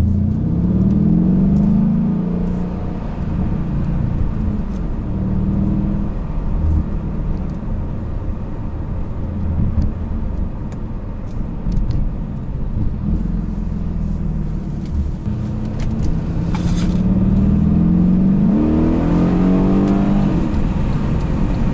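Mercedes-Benz E63 AMG's 5.5-litre twin-turbo V8, heard from inside the cabin in Sport Plus mode, accelerating. The engine note rises in pitch at the start and again in the last few seconds, and runs steadier in between.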